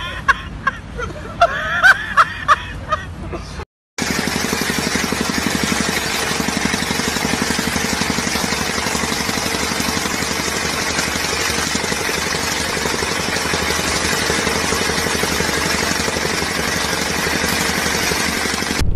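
Vibratory rammer (jumping-jack compactor) running, a steady engine noise with a fast even pulse. This starts about four seconds in, after a short stretch of people's voices and laughter that ends in a sudden cut.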